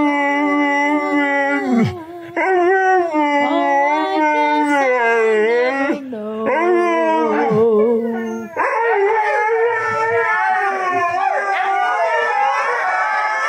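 Husky howling: three long drawn-out howls, each lasting a couple of seconds, then from about eight and a half seconds in several howling voices overlapping.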